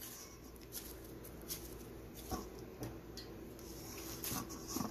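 Faint scraping and soft ticks of fingers pulling damp rice-flour and semolina dough apart against a steel bowl, a few scattered small sounds rather than a steady one.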